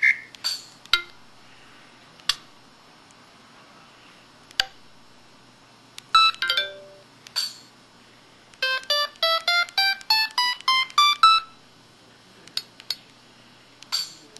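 Samsung SPH-X7800 mobile phone playing its built-in effect sounds through its small speaker: scattered short electronic clicks and chimes, a brief tinkling jingle about six seconds in, then a quick run of beeping tones stepping upward in pitch for about three seconds.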